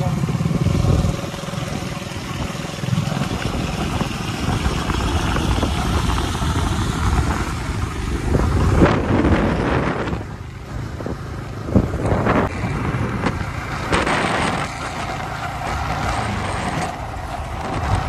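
Yamaha motorcycle engines running at steady cruising speed, with wind and road noise rushing over the microphone and a few louder gusts partway through.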